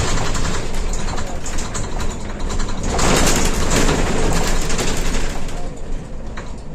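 Mercedes-Benz Citaro city bus on the move, heard from inside behind the driver: engine and road noise, swelling louder for a couple of seconds about three seconds in.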